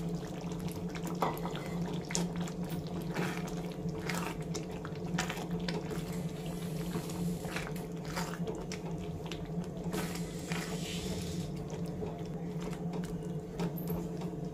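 A silicone spatula stirring paneer cubes through thick curry gravy in a non-stick pan: irregular wet squishing and light scraping strokes. A steady low hum runs underneath.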